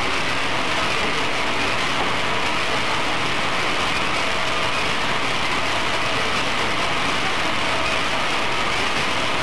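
Flour-coated peanuts tumbling in a rotating flavoring drum, giving a steady, even rattling hiss with a machine running underneath.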